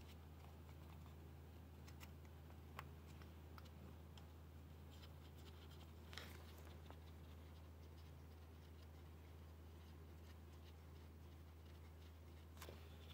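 Near silence: a steady low hum under faint scratching, with three small clicks as gloved hands handle the fuel injector fittings.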